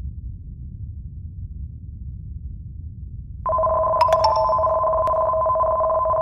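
Low rumble of a simulated earthquake. About three and a half seconds in, a loud steady two-tone warning alarm starts suddenly: the alert tone that introduces a tsunami early-warning announcement.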